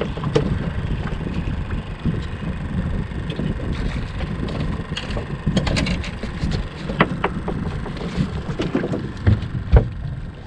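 Steady low rumble of wind and water around a small boat at sea, with scattered light knocks and clicks.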